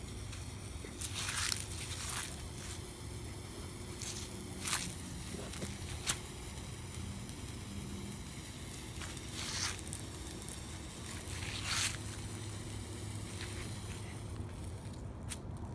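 A lit handheld sparkler fizzing steadily, with a sharp crackle every second or two.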